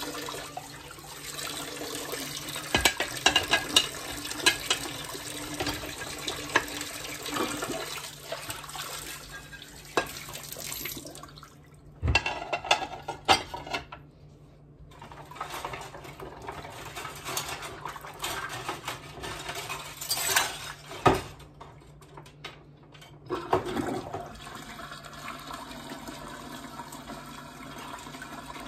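Dishes being washed by hand in a sink: tap water running and splashing, with ceramic plates and utensils clinking against each other and the sink. The clinks come in clusters, several times over.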